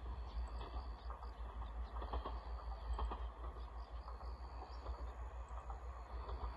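Wind buffeting the microphone in an open field, a pulsing low rumble, with faint insects chirping now and then.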